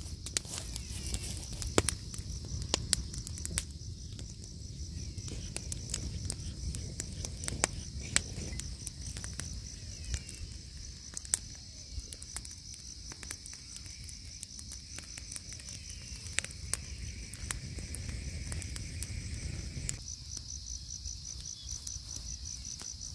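Night insect chorus: a steady, finely pulsing high-pitched trill, with scattered sharp clicks and small knocks over a low rumble.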